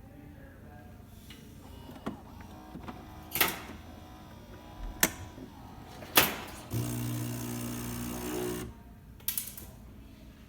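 Gaggia Academia super-automatic espresso machine working through a shot: a low mechanical hum broken by several sharp clicks and knocks, then a steady pump buzz for about two seconds past the middle before more clicks.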